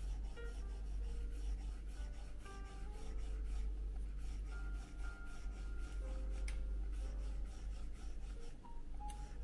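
Apple Pencil tip rubbing and scratching across an iPad screen in many short repeated strokes, under soft background music.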